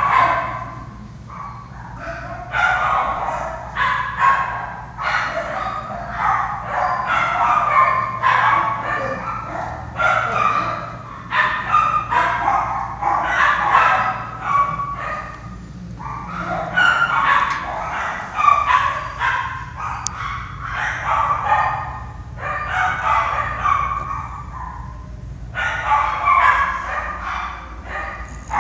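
English bulldog snoring in deep sleep: a rough, rasping snore with each breath, about every one to two seconds, with a couple of short pauses.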